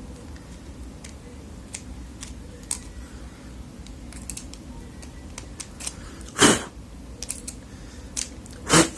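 Small metal clicks and taps of a screwdriver working against the parts of a fishing reel, scraping out built-up gunk, with two louder short scrapes about six and a half seconds in and near the end.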